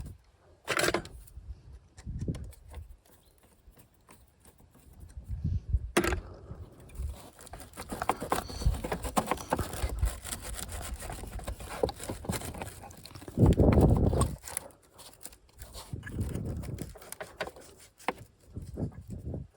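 Hand-work noises from a fuel filter change: scattered clicks, knocks and scraping of tools and parts, with a sharp click about a third of the way in and a heavier thump about two-thirds of the way in.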